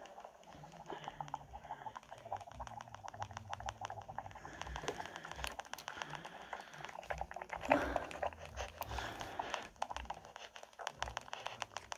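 ASMR wet mouth sounds, rapid lip smacks and tongue clicks made close to a microphone, played back through a Nintendo Switch's small speaker. One louder smack comes about eight seconds in.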